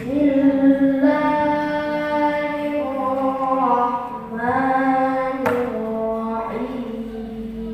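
A voice reciting the Quran in the melodic tilawah style, holding long drawn-out notes and sliding between pitches, with a short breath about four seconds in.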